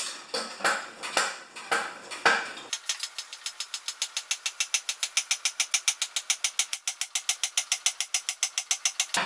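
Foot-pumped hydraulic scissor lift table being jacked up under a push mower. A few uneven clanking pedal strokes are followed by a fast, even clicking, about eight a second, as the table rises.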